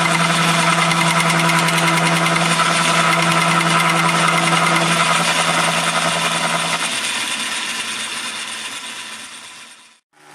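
Atlas horizontal milling machine running under power feed, its motor, belts and countershaft making a steady hum and clatter. About seven seconds in the motor hum cuts off and the machine winds down to a stop.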